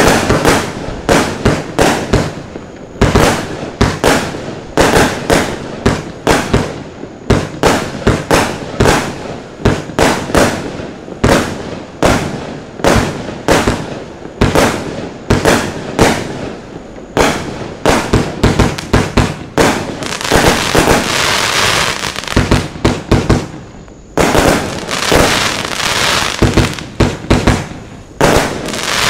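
Lesli Dark Dragon 200-shot firework battery (25 mm calibre) firing a rapid string of shots, about two or three reports a second. Later on, the shots merge into stretches of dense continuous crackling.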